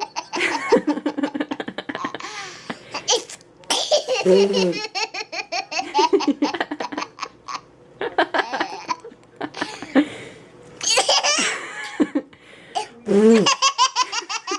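A baby laughing hard in repeated fits of rapid, breathy laugh pulses, set off by short silly vocal noises from an adult about four seconds in and again near the end.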